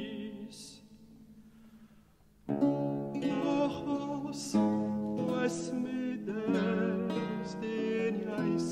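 A held chord dies away to almost nothing, then about two and a half seconds in a theorbo and baroque guitar come in together with plucked and strummed chords, a male voice singing over them.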